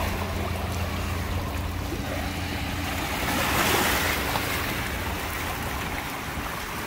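Small sea waves lapping and splashing against shoreline rocks, over a steady low motor hum that fades out about halfway through.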